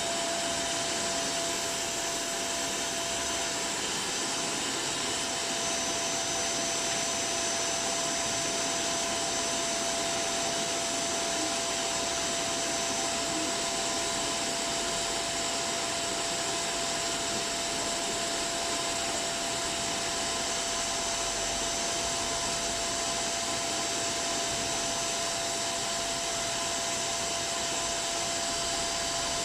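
Tunnel car wash machinery running steadily: a continuous strong hiss with a fixed, steady whine, typical of motor-driven blowers or water sprays.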